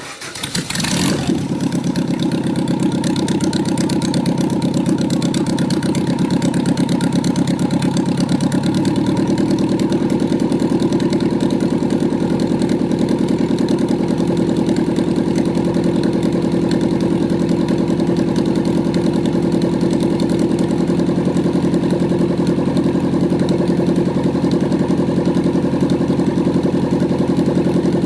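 Engine of a homemade helicopter running under a load test. It cuts in abruptly and builds over about two seconds, then runs steadily, with a slight change in tone about nine seconds in.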